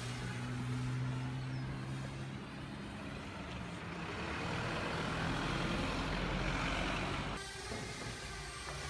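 City road traffic: a large vehicle's engine hums low and steady, then a car passes, its noise swelling and fading over a few seconds. The sound changes abruptly about seven seconds in.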